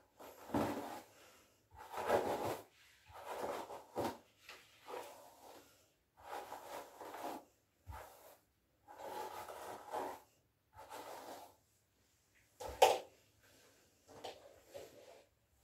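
Rubber-gloved hands and a brush rubbing paint through long hair in repeated short strokes, with one sharp knock near the end.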